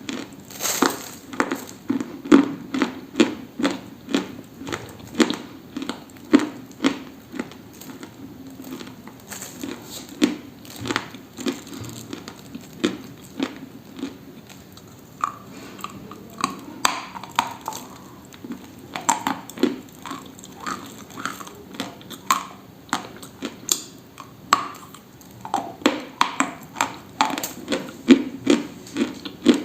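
Close-miked dry crunching of something brittle being bitten and chewed, a steady run of sharp crunches two or three a second.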